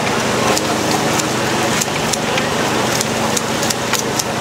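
Busy night-market ambience: a constant crackling hiss studded with many sharp clicks.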